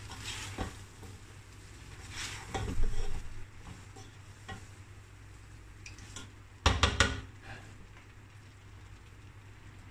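Two spoons tossing spaghetti and vegetables in a non-stick frying pan: scraping and knocks of the spoons against the pan, with a cluster of sharper knocks about seven seconds in, over a light sizzle.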